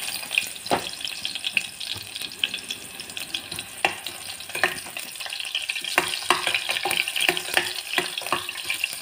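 Sliced onions frying in oil in a pressure cooker: a steady light sizzle and crackle. A spoon stirs them, with sharp clicks now and then as it knocks against the pot.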